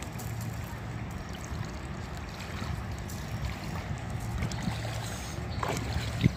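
Feet wading through shallow river water with soft splashing and sloshing, over a steady low rumble. A single sharp knock sounds just before the end.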